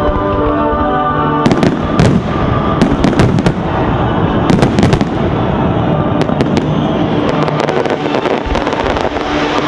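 A fireworks display: aerial shells bursting in a run of sharp bangs and crackles, thickest between about one and a half and five seconds in, then more scattered. Music plays underneath.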